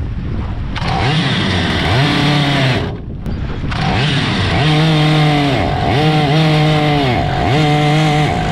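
Stihl 088 chainsaw's two-stroke engine driving a mini longtail boat's propeller, coming in about a second in after wind and water noise. Its revs rise and fall about once a second under load, a sign that the 3D-printed propeller is still too aggressive for it.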